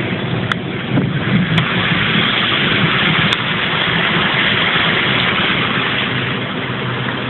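Car engine and road noise while driving, a steady rumble and hiss that gets a little louder about a second in.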